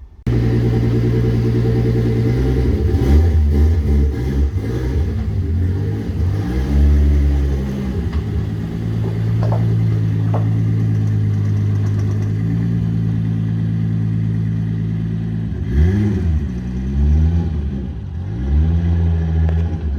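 VW VR6 engine running on a VEMS standalone ECU with a drive-by-wire throttle, idling steadily and blipped several times, its pitch rising and falling back to idle with each rev.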